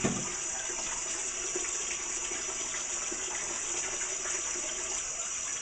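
Kitchen faucet running steadily, the water splashing into a bowl as it is rinsed out in the sink.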